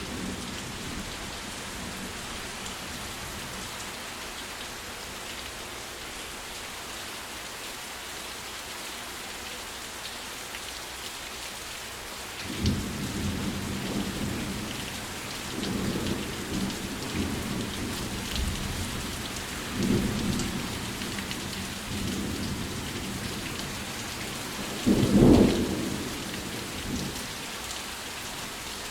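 Steady rain falling, a constant hiss. From about halfway through, thunder rumbles in several low swells, with the loudest, shortest peal near the end.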